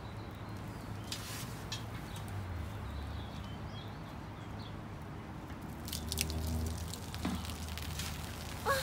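Vinegar poured onto baking soda in a plastic bottle, soft dripping and fizzing as the foam spills out, over a low steady rumble with a few soft clicks. A child's high excited squeal rises near the end.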